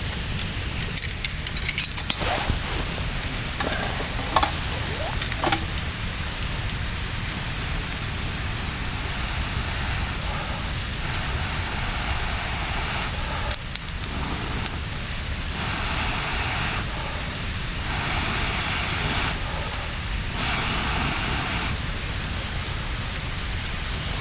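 Wood fire in a camp fire stand crackling over a steady hiss, with a few sharp clicks in the first six seconds and the hiss swelling several times in the second half.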